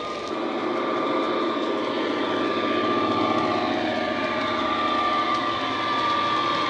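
Model Class 66 locomotive's DCC sound decoder playing a diesel engine running, through an EM2 speaker, as the locomotive moves. A steady whine is heard, and engine notes drift slowly in pitch.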